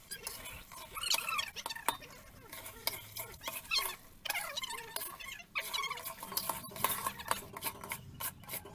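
Flat metal spatula stirring and scraping thick amla pulp across the bottom of a large iron wok as it fries in ghee, in irregular scrapes with short squeaks of metal on metal.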